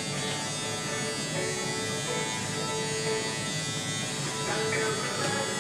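Electric hair clippers buzzing steadily while cutting a man's hair, with background music.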